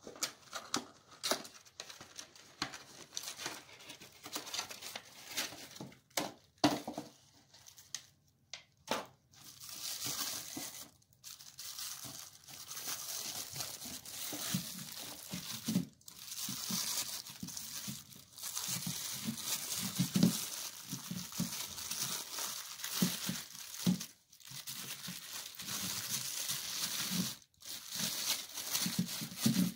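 For the first third, short scattered clicks and rustles from a wax ring kit's box being handled. Then a thin plastic bag crinkles almost continuously as a toilet wax ring is pulled out of it, with occasional soft knocks.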